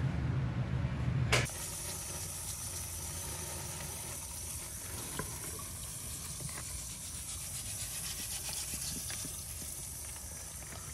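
A low hum at first, then from about a second and a half in a steady hiss of water from a garden hose spraying and splashing over a bare Mercedes M103 straight-six engine block as it is washed.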